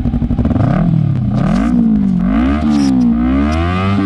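Honda CBR250RR motorcycle engine, just started: it idles with a fast, even beat for about half a second, then is revved in a run of quick throttle blips, its pitch rising and falling over and over.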